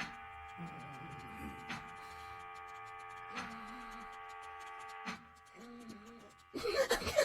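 Steady electrical hum of a machine made of several held tones, with a sharp click about every second and a half and low wavering tones between the clicks. Near the end a sudden, much louder rough noise starts.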